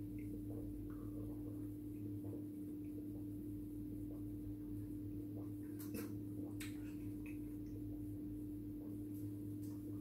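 Faint small clicks and sips of someone drinking juice from a cardboard carton through a plastic straw, with a couple of sharper clicks about six seconds in. A steady low hum runs underneath.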